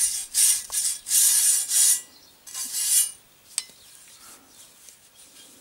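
Hand scrubbing at a cultivator wheel's steel rim: about five short scrubbing strokes in the first three seconds, then it goes quiet apart from a single sharp click.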